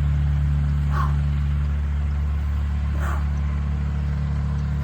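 A steady low machine-like hum, with a few short faint calls about two seconds apart, which may be a distant dog barking.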